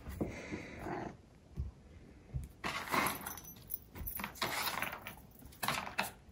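Cat pawing and nosing at a round cardboard food-puzzle toy loaded with kibble, making short irregular bursts of rattling and scraping.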